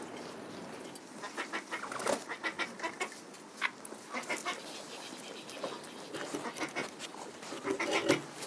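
Domestic fowl calling in quick runs of short, clucking notes.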